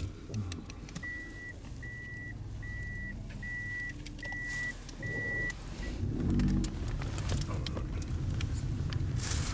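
A car's in-cabin warning beeper sounding seven short, evenly spaced high beeps, about one and a third a second, over the engine's low running. After the beeps stop, the engine gets louder with a rising note.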